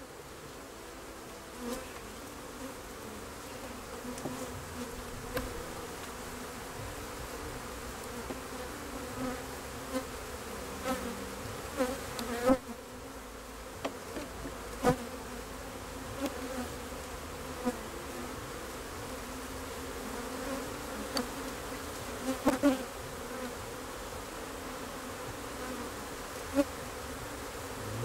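A steady, loud buzzing from a colony of dark European honey bees stirred up by an open hive inspection, which the beekeeper has been finding very aggressive. Now and then come a few sharp knocks and clicks of the hive tool against the wooden frames.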